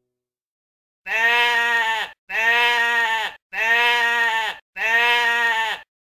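Sheep bleating four times in a row, each bleat about a second long with a short pause between, the four calls identical.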